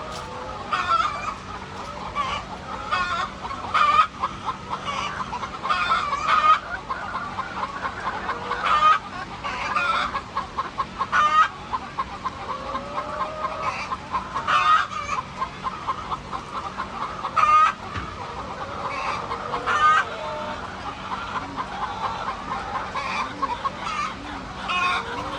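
A flock of chickens clucking as a constant chatter, with frequent short, loud calls standing out every second or two.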